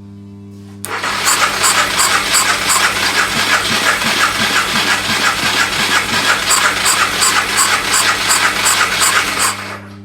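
BMW F650GS Dakar's single-cylinder engine being cranked on the electric starter for about nine seconds, with an even pulsing rhythm, and not catching: a no-start despite spark and fuel.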